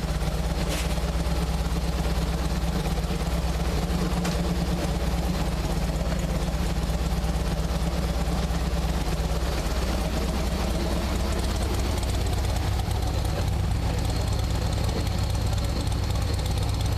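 Harley-Davidson 103 V-twin engine idling steadily while it warms up, with the air-fuel mixture being watched as it leans out.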